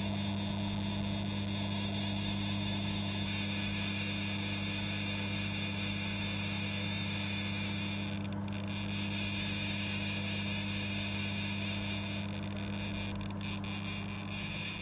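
Microwave oven running: a steady electrical hum pitched near 100 Hz, with overtones and a faint hiss above it.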